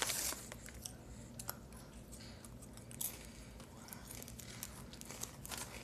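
Plastic Cheez-It snack bag crinkling loudly at the start as a hand reaches into it, then faint, scattered crunches of the crackers being chewed, with light rustles of the bag.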